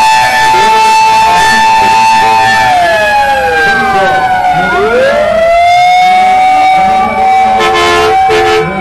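Several fire truck sirens sound together as the fire engines drive slowly past. One holds a steady tone while others wail down and back up. Near the end a horn sounds in a few short blasts.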